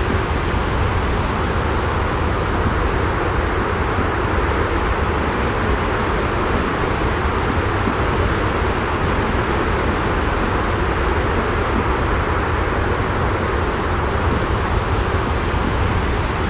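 Steady, unchanging rushing noise with a deep rumble underneath: a continuous white-noise sleep ambience.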